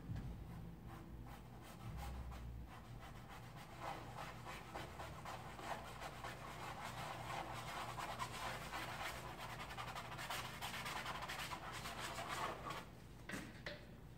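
Paintbrush scratching and scrubbing across canvas, a dry rasping sound that goes on for about ten seconds and stops near the end, over a faint low hum.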